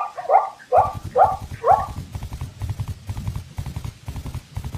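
Zebra calling: five short, barking yelps about half a second apart, each rising in pitch, over the first two seconds. Fast, low thudding hoofbeats of a gallop follow and run on.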